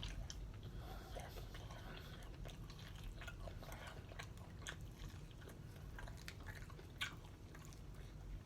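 A person chewing and biting into spicy chicken wings close to the microphone: soft, quiet mouth sounds with scattered short clicks, the sharpest about seven seconds in.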